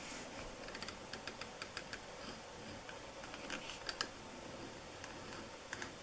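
Leather grooving tool cutting a groove along the edge of a piece of leather: faint, irregular small clicks and scratches in little clusters as the blade is pushed through the leather.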